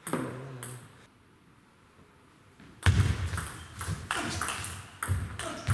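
Table tennis ball being hit back and forth between bats and table in a rally: sharp clicks about twice a second, starting about three seconds in after a hush.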